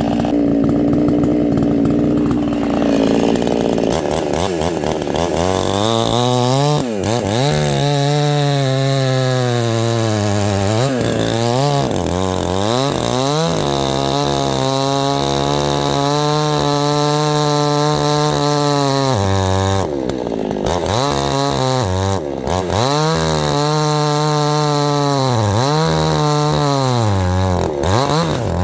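Small gas chainsaw cutting into a log lying under compression. The engine holds steady for the first few seconds, then revs up and down over and over as the throttle is worked through the cut.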